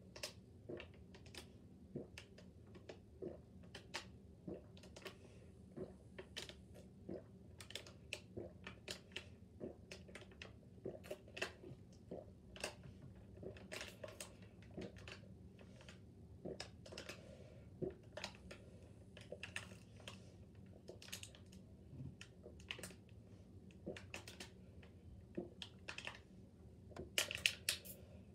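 Someone gulping water straight down from a plastic bottle: faint, irregular swallowing clicks and bottle crackle, one or two a second, with a louder cluster near the end.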